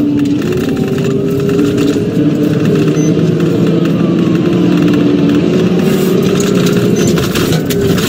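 Police patrol car's engine running hard under acceleration, heard from inside the cabin over road and tyre noise. Its note climbs slowly and drops back in steps a few times as the car speeds up and slows for a turn.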